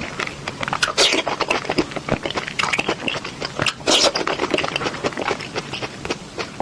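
Close-miked biting and chewing of crisp, juicy fruit: two sharp crunching bites, about a second in and about four seconds in, with wet crackling chewing between and after.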